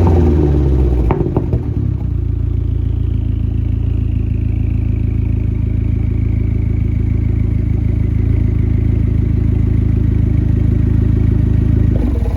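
Dodge SRT-4's turbocharged 2.4-litre four-cylinder engine coming down off a rev and settling to a steady idle within the first two seconds, with a faint falling whistle over the idle for a few seconds. The sound cuts off abruptly near the end.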